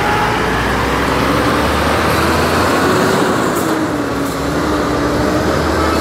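Street traffic noise dominated by a heavy truck's diesel engine running close by at low revs, its note wavering slightly as it moves.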